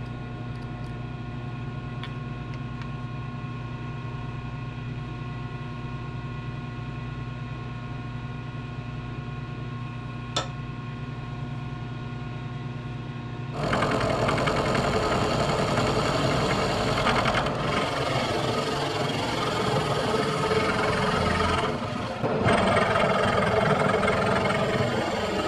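Milling machine running with a steady motor hum, one sharp click about ten seconds in; about halfway through an end mill starts cutting the crank web to mill out the counterweight, a much louder continuous metal-cutting noise with two brief dips.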